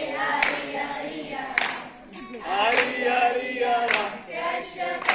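A group of children chanting a scout song together in unison, with a sharp hand clap about once a second keeping the beat.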